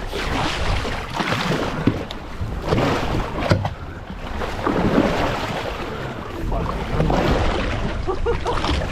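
Wind buffeting the microphone and sea water washing around a small boat, in uneven swells, with a few sharp knocks, the loudest about three and a half seconds in.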